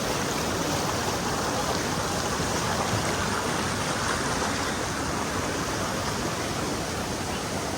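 Rushing river water, a steady wash of noise.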